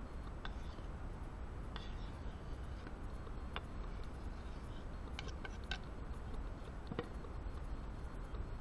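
A handful of sharp clicks and taps, with a quick run of three a little past halfway, from a carbon-steel knife against a wooden cutting board as sliced cabanossi is scraped off into a cook pot. A steady low rumble lies underneath.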